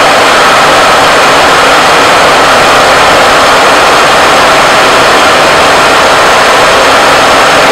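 A conventional milling machine running a friction stir processing pass: its rotating tool is plunged into an aluminium 5083 plate, stirring silicon oxide powder into the metal as it traverses. The noise is loud and steady.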